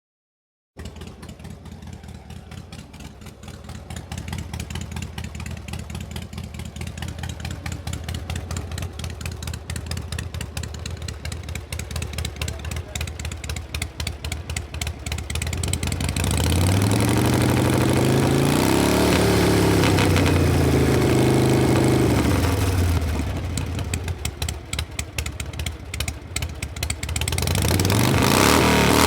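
Harley-Davidson Panhead V-twin motorcycle engine idling with an uneven pulsing beat. It is revved about sixteen seconds in, the pitch rising and falling, then drops back to idle and is revved again near the end.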